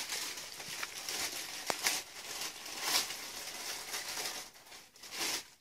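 Clear plastic bag crinkling in irregular rustles and crackles as it is handled and pulled open, going quiet near the end.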